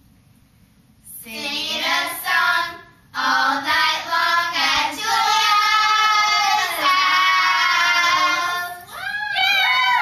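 Children singing in high voices, starting about a second in after a brief hush, with long held notes through the middle.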